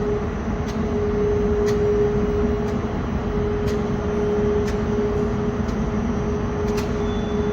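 Train running: a steady rumble under a steady hum, with a light click about once a second.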